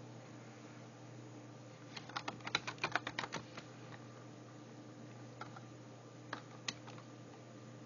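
Typing on a computer keyboard: a quick run of keystrokes about two seconds in, then a few single key presses later.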